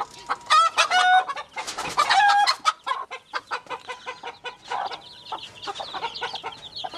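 Mother hen giving two loud calls in the first half, while her chicks peep constantly in quick, high, repeated cheeps that fill the second half.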